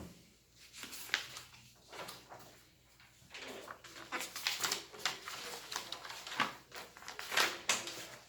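Irregular rustling and light knocks of things being handled, busiest in the second half.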